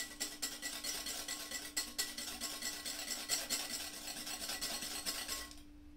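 Wire balloon whisk beating cold double cream by hand in a glass bowl, with quick, even scraping strokes that stop near the end. The cream is close to whipped.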